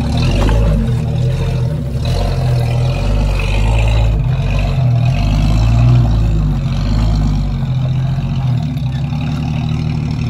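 Jeep Cherokee XJ engine running under load as it crawls up a rocky slope, the throttle swelling and easing every second or two.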